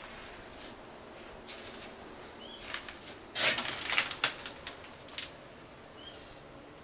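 A short, high bird chirp repeated a few times, a few seconds apart. Partway through, a louder burst of rapid rustling and clicking lasts about a second.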